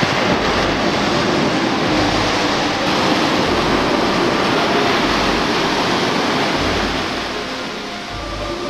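Rough, storm-driven sea: waves breaking and surf washing up a sand beach, a loud, steady rush of water.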